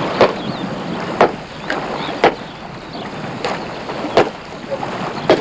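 Wind and water at the shoreline, broken by five sharp knocks or slaps spaced about a second apart, with a few faint high bird calls.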